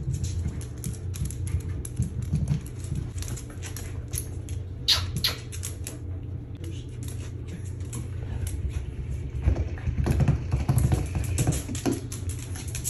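Dogs' claws clicking and tapping on a hard floor as they move about: irregular runs of small ticks, with a sharper knock about five seconds in. A low steady hum runs underneath.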